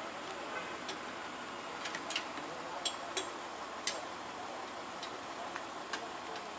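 Light irregular clicks and taps of tools and hardware as workers rig a crashed bus's front to a tow truck, over a steady background hiss. About seven clicks are spread unevenly through the sound.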